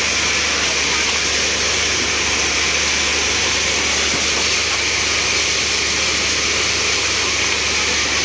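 Fire truck engine and pump running steadily, with a loud, even hiss of spraying water over its low hum.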